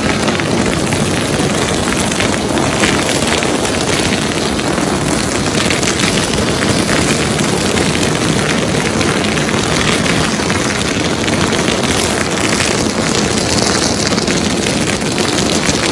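Long strings of firecrackers going off in a continuous dense crackle of rapid bangs that does not let up.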